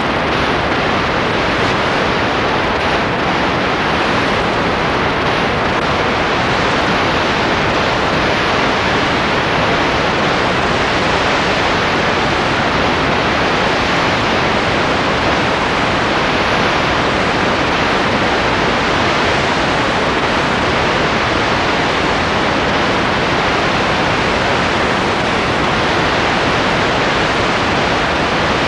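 A loud, steady hiss that does not change at all, with no other sound in it.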